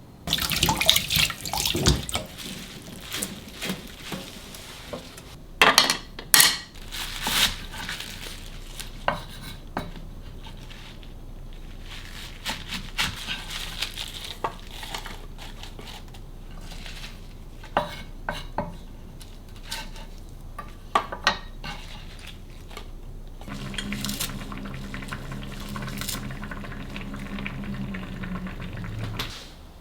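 Kitchen work: dishes, containers and utensils clinking and knocking on and off, with a short run of water. Near the end a steady low hum runs for several seconds.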